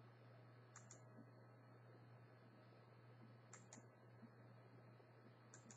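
Near silence: a faint steady hum with a handful of faint, scattered clicks of a computer mouse.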